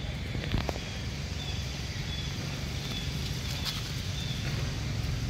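Outdoor forest ambience: a steady low rumble on the microphone, a couple of sharp clicks about half a second in, and faint short high-pitched chirps.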